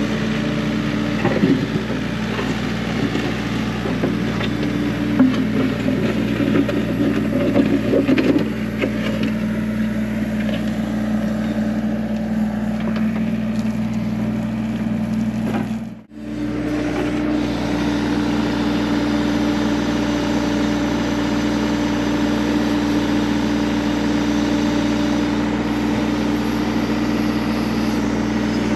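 Hyundai mini excavator's diesel engine running steadily while its bucket digs through gravel and rocky soil, with stones crunching and scraping mostly in the first several seconds. The sound cuts out briefly about halfway through, then the engine runs on.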